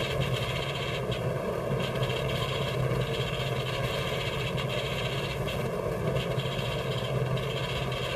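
Steady hiss with a low hum and no speech: the background noise of an old, worn television soundtrack.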